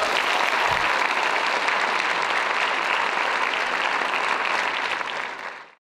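Audience applauding, a steady dense clapping that fades out at the very end.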